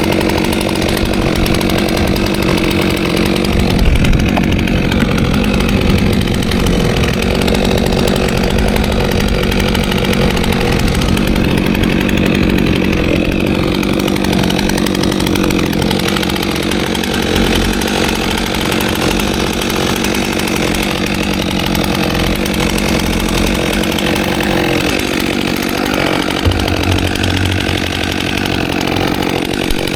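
Stihl MS 400 C two-stroke chainsaw running steadily at high revs under load, cutting wood.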